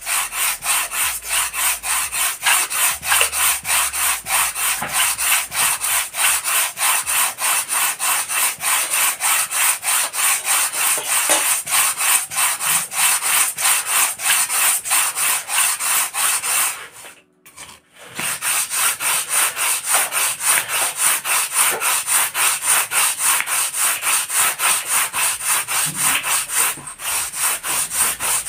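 A wooden sandpaper block is rubbed briskly back and forth over a foam model-aircraft wing, making a steady, rhythmic scratchy rasp of about five strokes a second. The foam is thinning and flattening the wing's trailing edge. The strokes stop for about a second roughly two-thirds of the way through, then resume.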